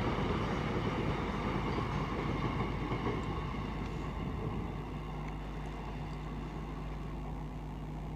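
Double-stack container freight wagons rolling past on the track: a steady rail rumble that slowly fades as the end of the train passes. A steady low hum joins about five seconds in.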